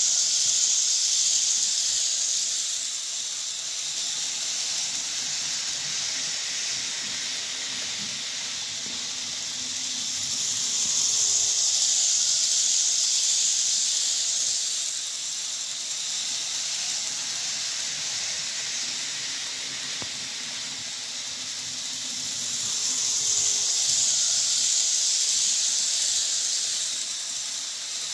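TT-scale model train, a Tillig Vectron locomotive hauling Hornby TT120 Mk3 coaches, running on a layout: a steady high hiss of the motor and wheels on the rails that swells three times, about every twelve seconds, as the train comes round close by.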